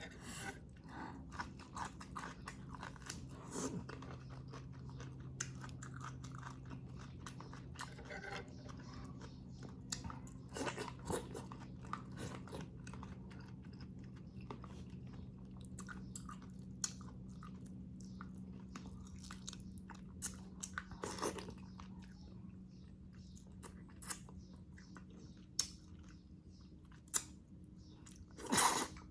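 Close-miked chewing and mouth sounds of a person eating, with irregular wet clicks and smacks, over a faint steady low hum. A louder, longer mouth noise comes near the end.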